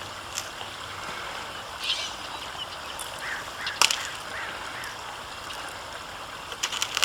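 Steady outdoor background hiss with a few short chirps and a sharp click about four seconds in.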